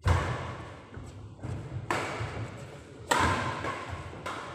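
Badminton rackets hitting a shuttlecock during a rally: three sharp hits, one right at the start, one about two seconds in and one just over a second later. Each hit echoes in the large hall.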